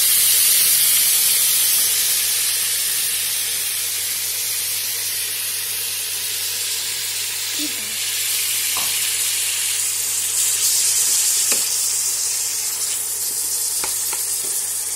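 Chopped onions sizzling loudly in hot oil in a kadai, strongest just after they are dropped in and easing off, then swelling again as they are stirred with a wooden spatula. A few light knocks of the spatula against the pan.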